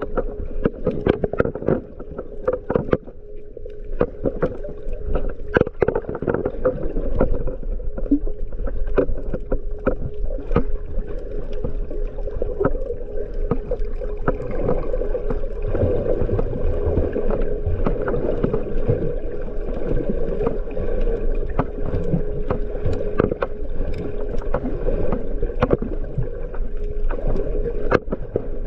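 Underwater sound through a camera's waterproof housing while snorkelling over a coral reef: a muffled churn of moving water with many scattered clicks and crackles over a steady hum.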